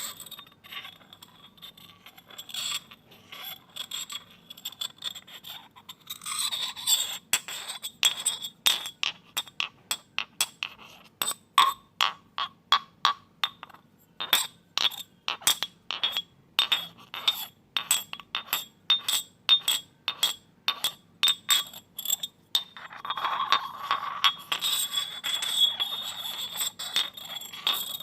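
Glasses clinking together over and over, each sharp tap ringing at the same few pitches, about two taps a second through the middle. Near the start and again near the end the glass rubs and scrapes against glass between the clinks.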